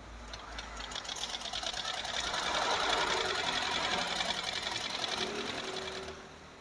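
Butterfly sewing machine stitching through black fabric on a test seam after being rethreaded to cure skipped stitches, with a rapid, even ticking of the needle mechanism. The ticking builds over the first couple of seconds and stops shortly before the end.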